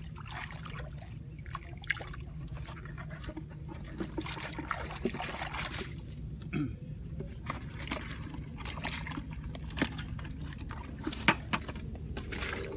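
Muddy water sloshing and splashing as hands scoop and grope in a shallow water-filled hole, with a few sharper splashes, the loudest near the end.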